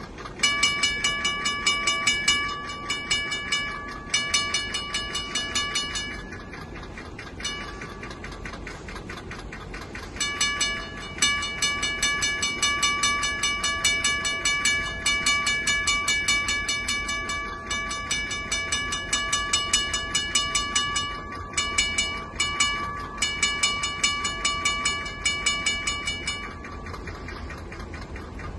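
Grade-crossing bell ringing in rapid even strokes as the crossing activates. The approaching SD70MAC sounds its Nathan K3LA horn for the crossing in long blasts, with one short break, the second blast running about ten seconds.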